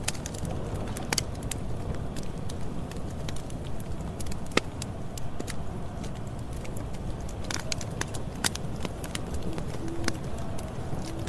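Campfire burning: a steady low rush of flame with irregular sharp crackles and pops of burning wood, one louder pop about four and a half seconds in.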